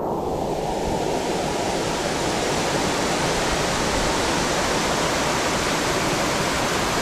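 Waterfall crashing down into a plunge pool: a loud, steady rush of water that grows brighter and hissier over the first second or two.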